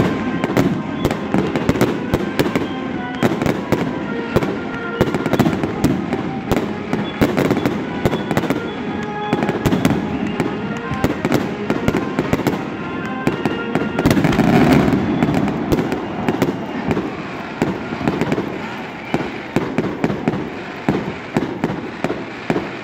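Fireworks grand finale: a rapid, unbroken barrage of shell bursts and crackles, many bangs a second, swelling loudest about fourteen seconds in.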